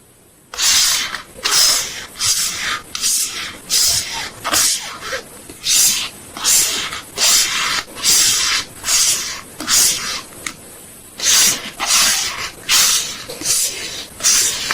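Packing materials for photocards rubbed or scraped by hand in quick, even strokes, about three every two seconds, with a short pause about ten seconds in.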